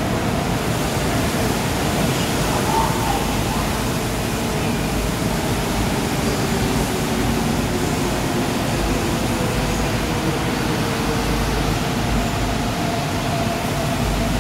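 Steady noise of a Seoul Line 4 subway train standing at the platform with its doors open: a constant whir of its air conditioning and onboard equipment, with a faint steady hum that firms up in the second half.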